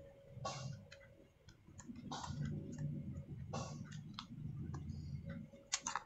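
A small screwdriver and metal parts clicking as the SSD's retaining screw is undone inside a MacBook Air, four sharp clicks about a second and a half apart, with low rubbing of hands on the case between them; the last click comes as the SSD is lifted free of its slot.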